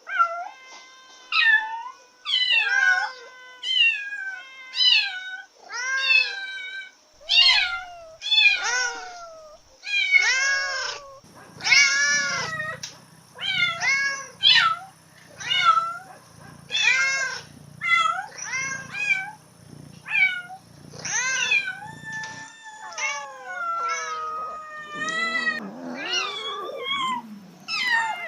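Cats in heat meowing in a run of short, rising-and-falling calls, about one a second, with longer, lower overlapping calls near the end.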